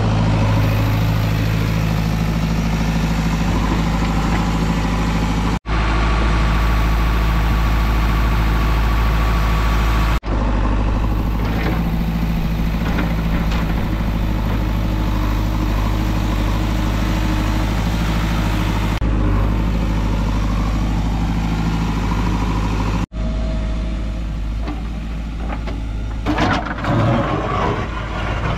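JCB Eco Xcellence backhoe loader's diesel engine running steadily under work, with three sudden breaks in the sound. Near the end, the steel digging bucket clatters and scrapes through rocky soil.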